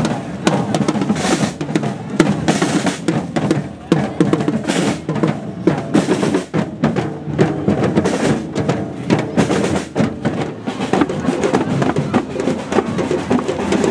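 Marching street drum band playing snare drums and larger drums together in a steady driving rhythm, with dense rolls.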